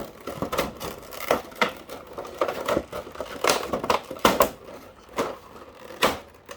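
Toy packaging being opened by hand: cardboard and plastic handled, giving a string of irregular clicks, rustles and crinkles.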